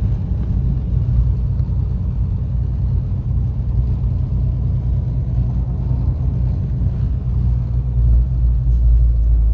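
Steady low rumble of a vehicle in motion heard from on board: engine, road and wind noise, growing a little louder near the end.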